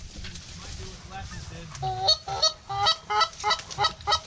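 Goose honking: a few faint honks, then a rapid run of about ten loud, short honks in the second half.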